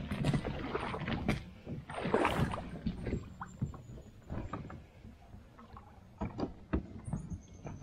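Water sloshing and splashing against a plastic fishing kayak's hull as it is handled in the shallows, with scattered knocks and clicks from the hull and gear. The water sounds are loudest in the first half and a few sharp knocks come later.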